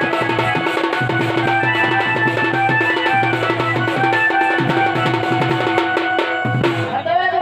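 Dhol, a two-headed barrel drum, beaten by hand in a quick, busy rhythm, with a melody instrument playing a tune over a steady held drone.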